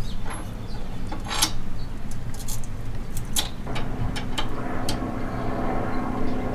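A few sharp metallic clinks and knocks as a steel threaded rod and its nut are worked into the steel base frame of a wheelchair lift, over a steady low mechanical hum that picks up a steady tone about halfway through.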